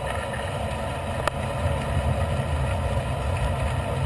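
Steady rumble of wind buffeting the microphone of a camera on a moving bicycle, with the road noise of the ride. A single sharp click comes about a second in.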